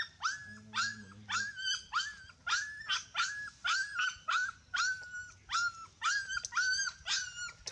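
Puppy whining in a steady run of short, high cries, about two a second, each sliding up in pitch and then holding, while nursing.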